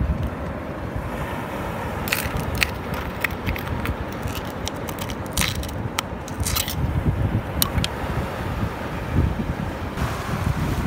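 Wind rumbling on the microphone, with scattered sharp clicks and scrapes of shells and stones being handled on oyster-crusted rock. The clicks come in clusters about two seconds in and again around six seconds.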